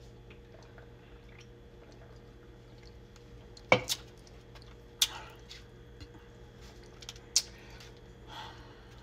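Eating and handling noises: a few sharp clicks and knocks from a plastic fork working at chicken on a paper plate. The loudest is a double knock about four seconds in.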